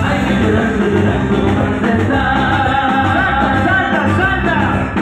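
Live Latin dance band playing tropical music through a sound system: a male lead singer over drums, timbales and congas with a steady beat.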